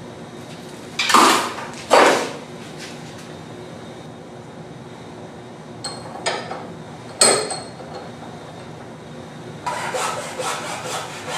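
Hand tools and a wooden dowel being handled at a steel bench vise: two loud knocks in the first couple of seconds, a sharp metallic clank with a short ring a little past seven seconds, and a quick run of scraping strokes near the end.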